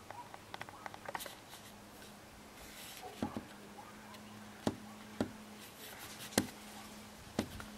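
Scattered sharp clicks and knocks, with about five louder ones in the second half, over a faint steady low hum.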